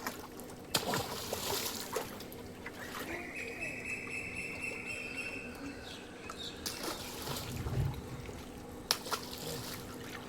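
Water trickling and splashing at the edge of a fishing pond, with a few short sharp splashes.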